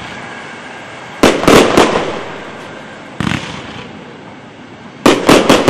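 Aerial fireworks shells bursting overhead: a quick cluster of bangs about a second in, a single bang around three seconds, and another rapid cluster near the end, each trailing off in an echo.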